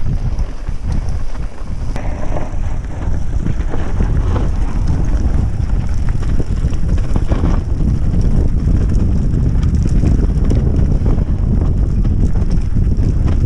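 Wind buffeting a handlebar-mounted camera's microphone as a mountain bike rolls fast down a dirt trail, over a deep steady rumble of tyres on the ground. Small clicks and rattles from the bike over rough ground run through it.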